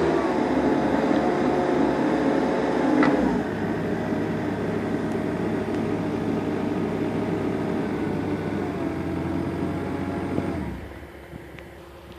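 Caterpillar 257B compact track loader's diesel engine running steadily, easing down slightly about three seconds in, then dying away near the end.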